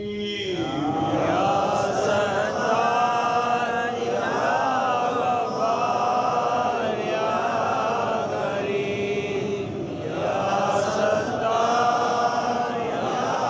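A man chanting a devotional Sufi recitation, in long held melodic phrases a few seconds each with short breaks between them.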